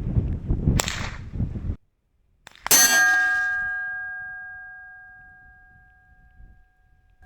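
Wind buffeting the microphone with a sharp crack of a shot about a second in, then a .22 LR bullet from a Ruger 10/22 striking a steel gong target. The gong clangs loudly and rings with a few clear tones that die away over about four seconds.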